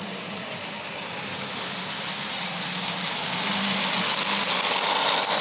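Bing gauge 1 tinplate locomotive, converted to run on DC, running along its track with coaches at about 17 volts. Its electric motor and wheels make a steady running noise that grows louder as it approaches and is loudest about four to five seconds in as it passes.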